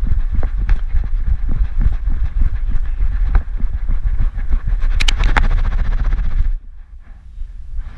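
Thumping and rubbing of a GoPro strapped to a small dog's back as the dog runs, its quick footfalls jolting the harness, with a few sharp clicks about five seconds in. The noise drops away for the last second or so.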